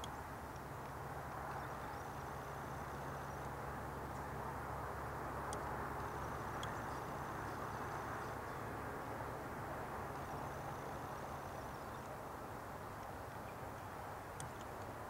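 Steady outdoor background noise with a low hum underneath. A faint high trill comes in twice, and there are a few light clicks.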